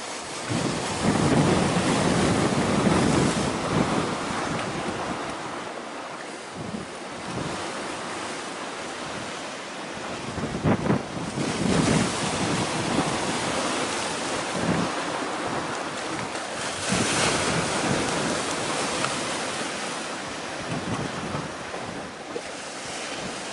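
Wind buffeting the microphone over the wash of choppy sea, rising and falling in gusts, with the strongest gusts in the first few seconds and again about two-thirds of the way through.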